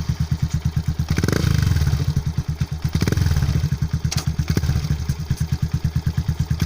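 Yamaha FZ-S V2.0's 149 cc single-cylinder engine idling through an aftermarket silencer, with an even pulsing exhaust beat. It is blipped briefly about a second in and again about three seconds in.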